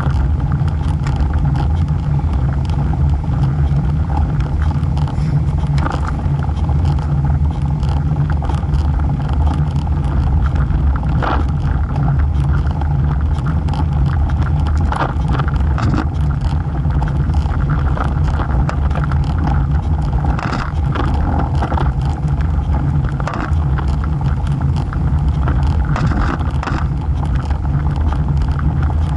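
Road bike riding along a paved road: a steady low rumble of wind and road vibration on a camera mounted low by the front wheel, with scattered light clicks and rattles.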